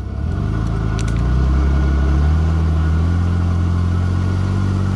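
Truck engine revving up under load, stepping up about half a second and again about a second in, then holding steady at raised revs as the truck crawls over a rock.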